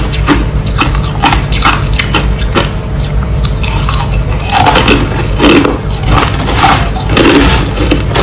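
Crushed ice crunching between teeth close to the microphone: a rapid string of sharp crunches, several a second.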